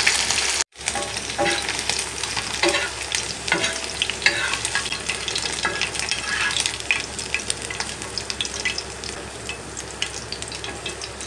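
Batter-coated prawns deep-frying in hot oil, sizzling and crackling. Clicks and scrapes come from a wire mesh skimmer as the fried prawns are lifted out. The sound cuts out for a moment just under a second in, then slowly grows quieter.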